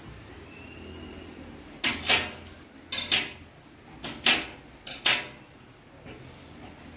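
Edge of a green-tinted glass pane being nibbled off with pliers to trim it to size: sharp glassy snaps, four pairs about a second apart, starting about two seconds in.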